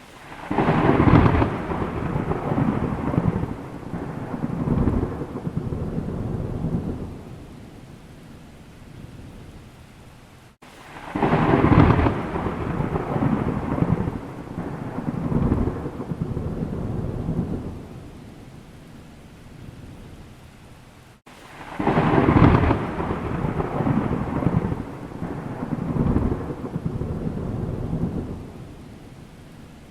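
Thunder: three long rolls about ten seconds apart, each breaking in loudly and rumbling on in several swells before dying away, over a steady low hiss.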